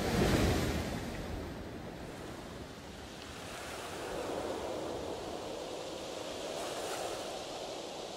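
Wind and choppy sea water: a rush of water loudest in the first second as spray sweeps a racing yacht's deck, then a steady rush of wind over the waves.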